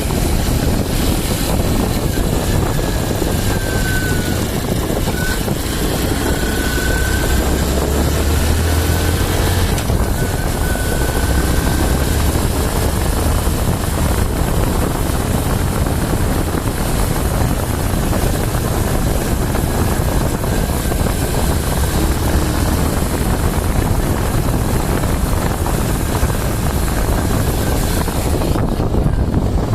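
TVS Sport 110 motorcycle's single-cylinder engine running steadily on the move, mixed with wind rushing over the microphone. A faint high whine comes and goes in the first ten seconds or so.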